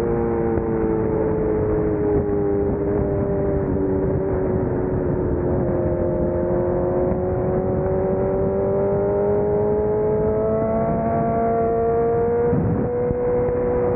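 Motorcycle engine running at road speed, its note sinking slowly and then climbing again over several seconds as the throttle is eased and reopened, with a brief break and jump in pitch near the end. Steady wind and road rush runs under it.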